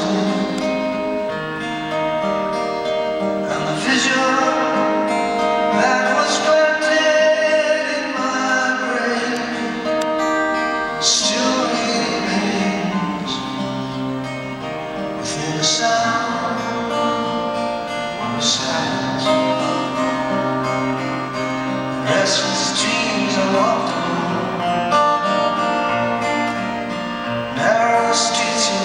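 A man singing solo to his own strummed acoustic guitar, amplified live on stage.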